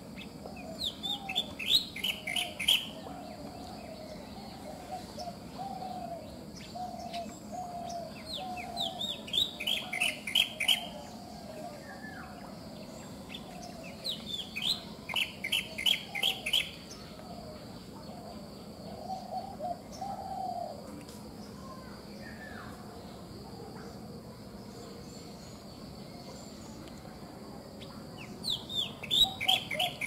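Black drongo calling in four bouts of quick, falling whistled notes, each a couple of seconds long: about a second in, near ten seconds, around fifteen seconds and near the end. Other birds warble softly and low in between, over a steady high insect buzz.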